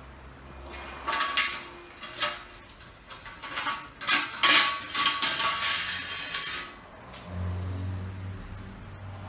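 Metal parts of a milking machine clanking and clinking as they are handled, in irregular knocks for several seconds. About seven seconds in, a steady low hum starts.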